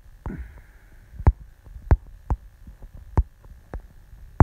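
Dull thumps of fingers tapping and swiping on a smartphone's touchscreen, picked up through the phone's own microphone. They come at irregular spacing, roughly two a second, over a faint steady high whine.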